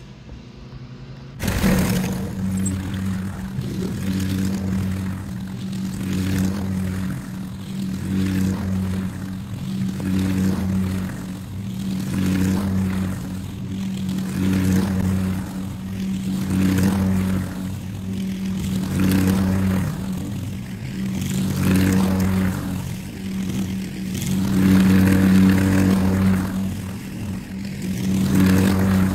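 Gas walk-behind push lawn mower running and cutting grass, its engine note rising and falling every two to three seconds. It starts abruptly about a second and a half in.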